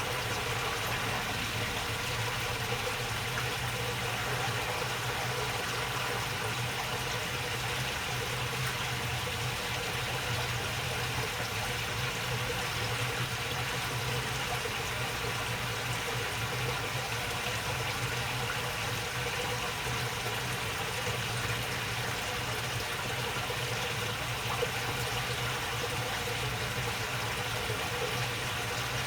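Water babbling steadily along a shallow channel, with a steady low hum underneath.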